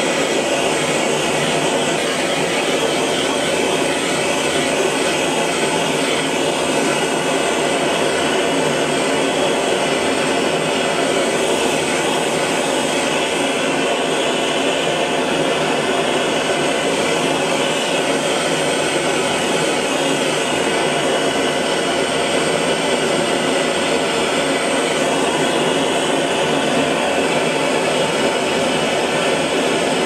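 Hose-fed gas blowtorch burning steadily, its flame played on bronze fusible plugs to heat them for tinning the threads with solder.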